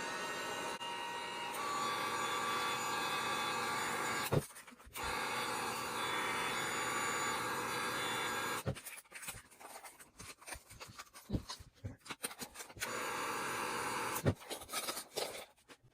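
Electric heat gun blowing hot air onto hot glue to soften it, running in stretches of a few seconds and cutting out in between. In the gaps, plastic parts knock and rub as the glued barrel is worked loose.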